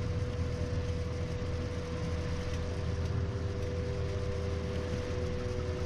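Engine and road noise inside a moving Ford car's cabin: a steady low rumble under a hiss of tyre noise, with a faint steady whine, joined by a second, lower whine about halfway through.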